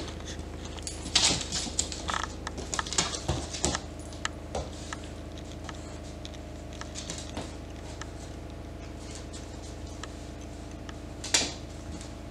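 Rhodesian Ridgeback puppy's claws clicking and scraping on a wooden floor as it moves about and plays with a plush toy. The taps cluster in the first few seconds, with one louder scuffle near the end, over a steady hum.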